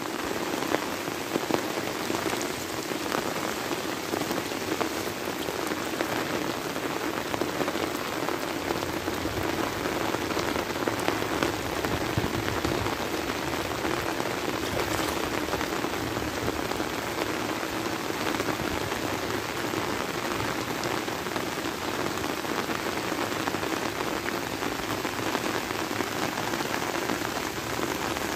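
Heavy rain falling steadily onto flooded rice paddies and the plants around them, an even, unbroken wash of rain on water and leaves.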